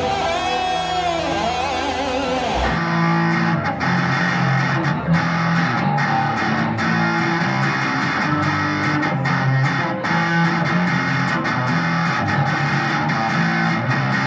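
Electric guitar played through a small amplifier, picking a repeated intro riff. For the first few seconds, before a sudden change, the end of another song is heard instead: a singer's wavering held note over guitar.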